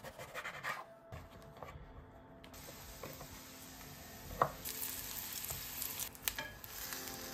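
Kitchen knife cutting eggplant and mushrooms on a wooden chopping board, with quick strokes near the start and one sharp chop about halfway. Then eggplant slices sizzling in hot oil in a frying pan.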